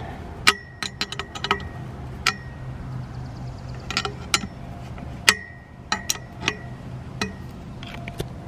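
Hand wrench clinking against a metal antenna mast while a bolt through the mast is tightened: about a dozen sharp metallic clinks, each with a brief ring, at irregular intervals.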